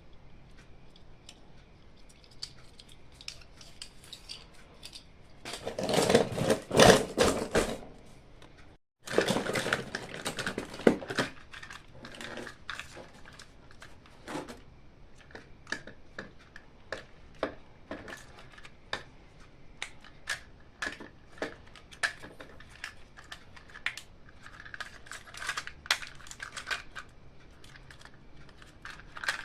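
Hands unboxing and handling toys and their packaging: a loud stretch of rustling and crackling about six seconds in, a brief cut to silence, then a run of small clicks and taps of hard pieces being handled.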